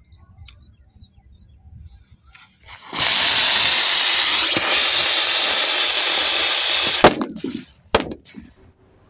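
A rocket firework's motor hisses loudly for about four seconds while tied to a bottle weighted with water, which it fails to lift. Then come two sharp cracks about a second apart.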